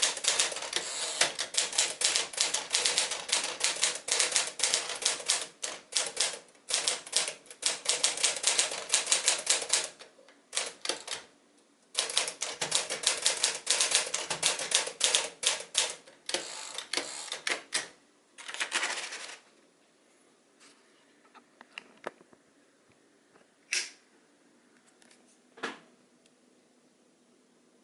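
1956 Smith-Corona Sterling 5A manual typewriter being typed on: quick runs of key strikes with a short pause about ten seconds in. Typing stops with a longer rasping sound about nineteen seconds in, followed by a few single clicks and knocks.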